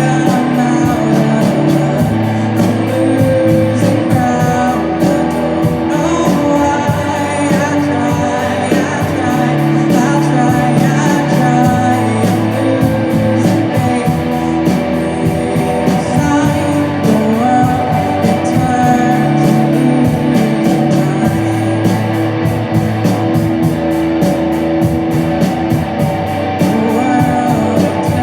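Rock band playing live: guitar, bass and drums with a steady, even cymbal beat, with singing over it.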